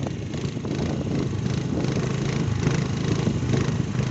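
A motor scooter's small engine running steadily while it is ridden along a paved road, with a haze of road noise over it.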